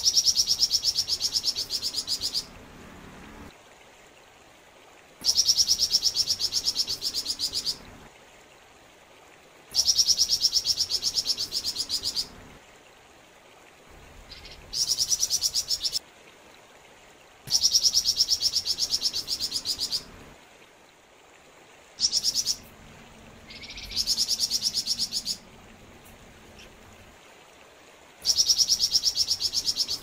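Flamboyan songbird singing in repeated bouts of a fast, high, rattling trill, each lasting about two seconds with a few seconds' pause between, about seven bouts in all. The steady trickle of a stream runs beneath.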